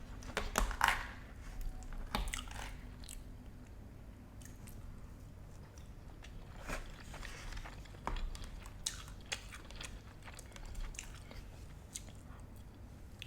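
Close-miked eating: a person biting and chewing food, with scattered clusters of sharp crunchy clicks and quieter chewing between them.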